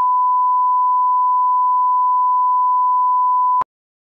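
Steady single-pitch reference test tone, the line-up tone played with colour bars, holding one unwavering pitch. It cuts off abruptly with a click about three and a half seconds in.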